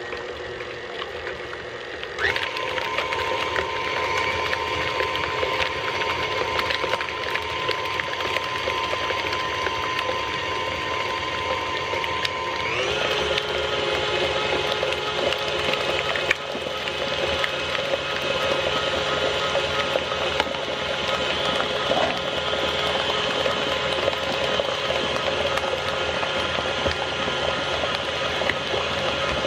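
KitchenAid tilt-head stand mixer running, its beater churning cream-cheese cheesecake batter in the steel bowl, with light clicks and knocks throughout. The motor starts about two seconds in and changes speed at about thirteen seconds.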